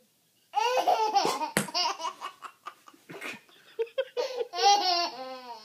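An 11-month-old baby laughing hysterically in repeated high-pitched bursts that begin about half a second in, with a sharp click about a second and a half in.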